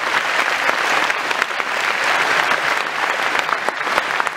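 A large audience of about 2000 people applauding steadily in a big hall.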